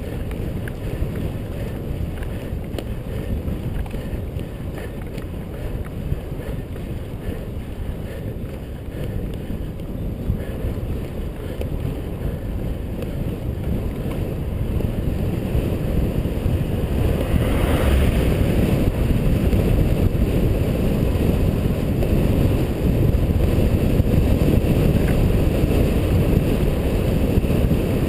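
Wind rushing over a helmet-mounted GoPro HD Hero's microphone on a moving bicycle: a steady low rumble that grows louder about halfway through.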